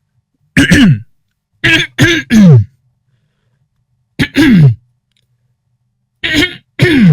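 A man clearing his throat and coughing in short, loud bouts with silence between, each bout ending in a voice that falls in pitch.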